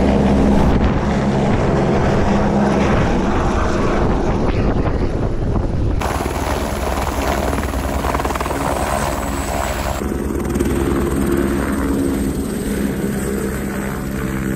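Helicopter lifting off and flying away close by, its rotor and turbine running loud and steady, with rotor-wash wind blasting across the microphone. The sound jumps abruptly twice and slowly fades.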